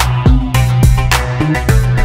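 Background music with a steady electronic drum beat and heavy bass.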